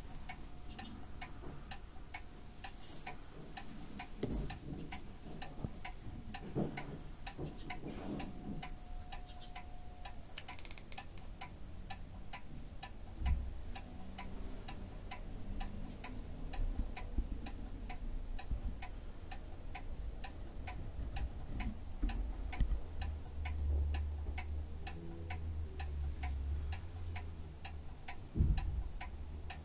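Steady ticking, about two ticks a second, over a low rumble with a few dull thumps.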